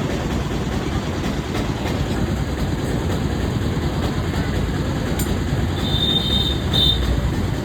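Steady, loud vehicle and road rumble, with a brief high-pitched squeal about six seconds in.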